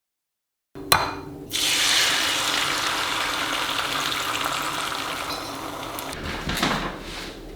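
A click about a second in, then a tap running water into a sink in a steady hiss that slowly eases off, with a few knocks near the end.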